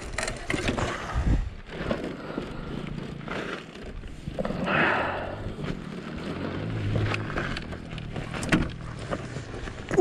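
Irregular clunks, knocks and scraping as a fallen Bajaj Boxer 150X motorcycle is handled and heaved back upright on gravel.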